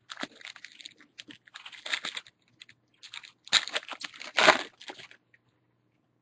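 Wrapper of a baseball card pack being torn open and crinkled by hand, with the cards slid out, in a run of rustling bursts that are loudest from about three and a half to four and a half seconds in and stop about a second before the end.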